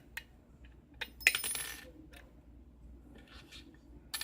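Small metal lock-picking tools clicking against a pin-tumbler lock, with one sharp metallic clink about a second in that rings briefly.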